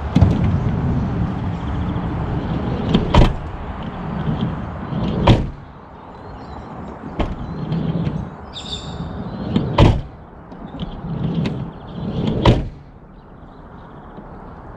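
A van's sliding door rolled along its track and slammed shut four times, each run ending in a sharp bang. The door is one that has been failing to close properly.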